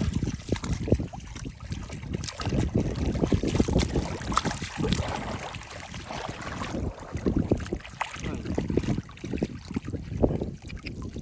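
Irregular splashing and sloshing in shallow water, with wind on the microphone.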